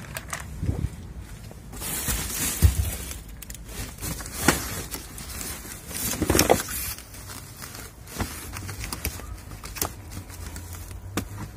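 Rustling and handling noise as gloved hands rummage through a cardboard box, moving a zippered bag and plastic laptop parts, with scattered clicks and a few louder knocks.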